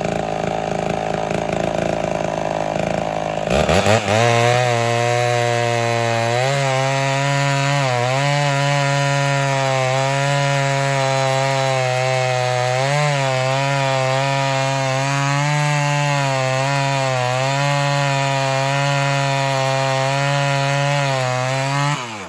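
Two-stroke chainsaw cutting through a large log, running high for the first few seconds, then dropping to a lower, wavering pitch under load; its chain is dull. Near the end the engine cuts out as if running out of fuel, the carburetor leaking fuel at its diaphragm.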